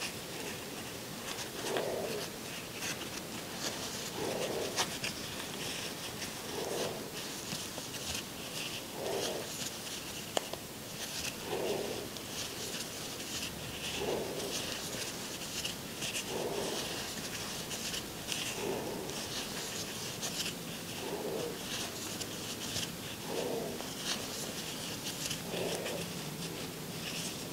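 Crochet hook and yarn rustling and ticking softly while stitches are worked, under a soft low puff that repeats about every two and a half seconds.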